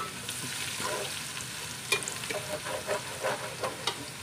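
Sliced onions sizzling in hot oil in an aluminium pot, stirred with a metal spoon that scrapes and clicks against the pot now and then. The salted onions are frying down to brown.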